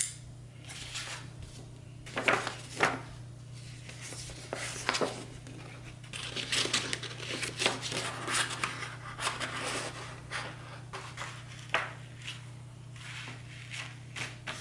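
Sharp scissors snipping through a sheet of paper in a run of irregular cuts, with the paper rustling as it is turned and handled.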